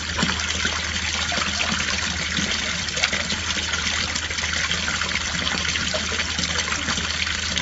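Steady running water, an even hiss with fine crackle, over a low steady hum.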